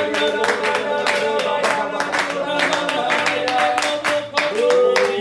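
Worship song with singing and instruments, with steady rhythmic hand clapping in time with the music.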